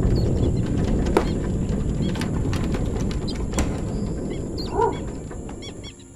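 Sound-effects nature ambience: a low, noisy rush that fades away, with scattered light clicks and several short bird chirps in the last couple of seconds.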